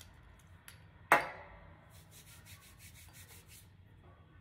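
A single sharp knock about a second in, a glass perfume bottle set down on a hard tabletop. Then for about a second and a half comes a quick, even run of dry scratchy ticks, about seven a second, from handling.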